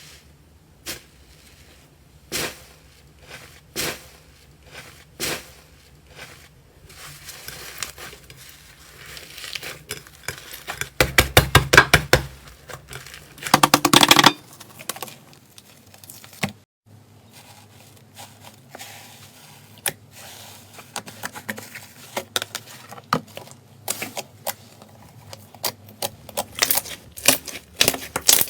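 Slime being pressed and poked by hand: irregular crackling pops and clicks, with two dense runs of rapid crackling near the middle.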